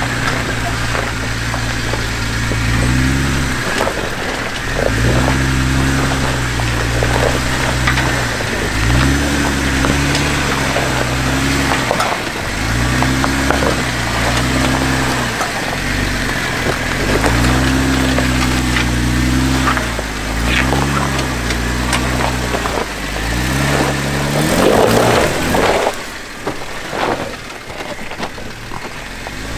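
Jeep JK Wrangler Unlimited crawling over a rocky trail, its engine revving up and easing off every couple of seconds as the throttle is worked. Short knocks and crunches of rock come from under the tyres.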